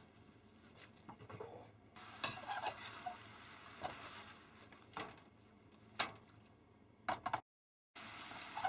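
Kitchen handling sounds: scattered sharp clicks and taps of utensils and food containers, about one a second, with the sound cutting to dead silence for half a second near the end.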